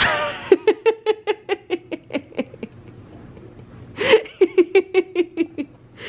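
Baby laughing in two runs of quick giggles, each run starting with a sharp gasp of breath, about five laughs a second.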